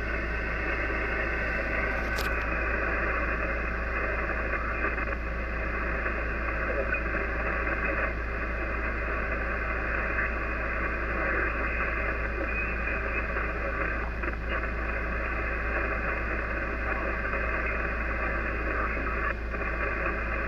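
Icom IC-756PRO HF transceiver receiving the 40-metre band in lower sideband while the dial is tuned across it: a steady hiss of band noise and static in a narrow, muffled passband, with faint, garbled traces of sideband signals.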